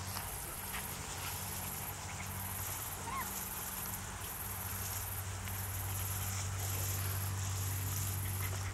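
High-pitched insect trill from a cricket-type insect, repeating in long pulses about once a second over a low steady hum.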